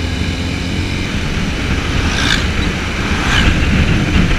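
TVS Apache 200 4V single-cylinder engine running while riding, under a steady rush of wind on the microphone, growing gradually louder. Two brief hissing gusts come about two and three and a half seconds in.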